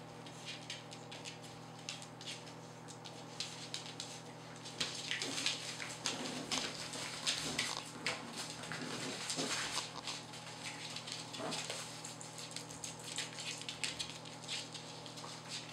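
Mexican Hairless (Xoloitzcuintle) puppies play-fighting: quick patter and scrabbling of their claws on a wooden floor, with small growls and yips, busiest in the middle.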